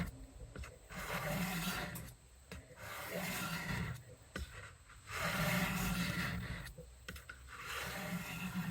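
Steel kitchen-knife edge drawn across a wet diamond sharpening stone on a guided sharpener: a rasping scrape on each pass, about four long strokes with short pauses between, part of a set of fifteen passes per side.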